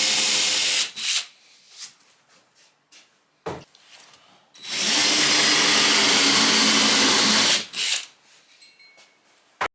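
Electric drill running under load, boring holes through a new flat interior trim panel: a short burst at the start and a longer steady run of about three seconds in the middle, with a single knock between them.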